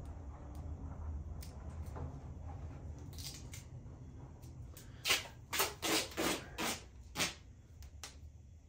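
Black duct tape being pulled off the roll in about six short, loud rips over two seconds, after some quiet handling of the taped ramp. A low steady hum runs underneath.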